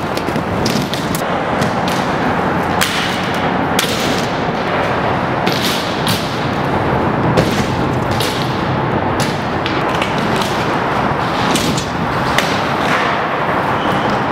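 Inline skate wheels rolling hard on concrete as a steady rushing noise, broken every second or so by sharp clacks and thumps of the skates hitting ramps, ledges and the ground.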